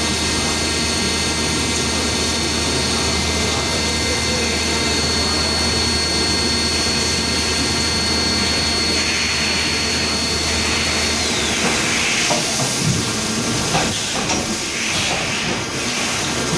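CNC milling machine cutting an aluminium profile under flood coolant: a steady high whine over a low hum. About eleven seconds in, the whine slides down in pitch and stops and the hum cuts out, leaving coolant spray hissing with a few knocks.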